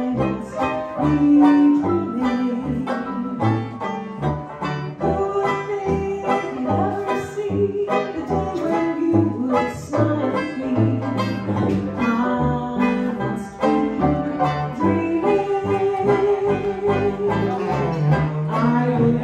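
A small hot-jazz band playing live: banjo strumming the rhythm under saxophone, trumpet and piano, with a woman singing the vocal.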